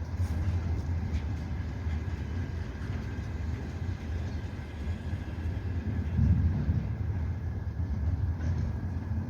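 Container freight train rolling past slowly: a steady low rumble with a few faint clicks.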